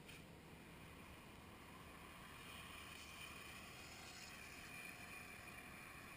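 Near silence with a faint, distant vehicle hum that swells slightly and then eases.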